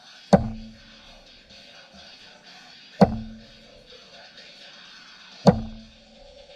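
Three heavy hammer blows on metal, about two and a half seconds apart, each leaving a short, low ring, over a steady background hiss.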